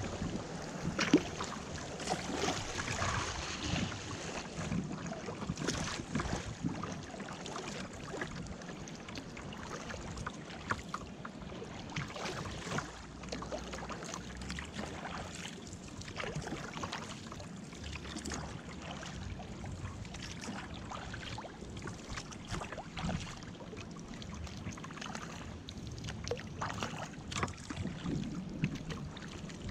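River water splashing and lapping against a kayak's hull as it moves through choppy water, with many small irregular splashes.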